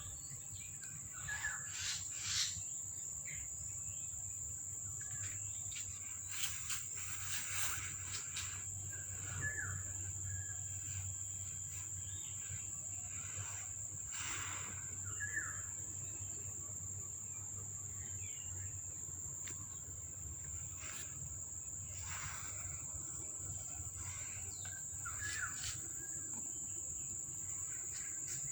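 Steady high-pitched insect trill, with a few short chirps and light clicks here and there.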